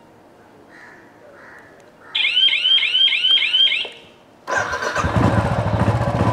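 Two faint beeps as the password is keyed into the motorcycle's digital-key fob. Then the anti-theft unit sounds a fast run of about five swooping, rising-and-falling alarm chirps for about two seconds, signalling that the bike is unlocked. After a short pause the motorcycle engine starts suddenly and keeps running.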